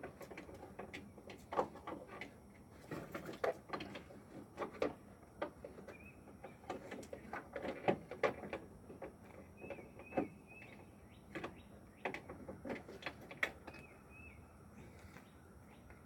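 Irregular clicks and light knocks of hands working a bulb into a pickup's headlight housing. A bird chirps faintly now and then in the background.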